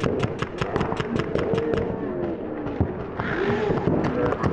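Paintball markers firing rapidly, about eight to ten shots a second, thinning out midway and picking up again near the end, with players shouting in the distance.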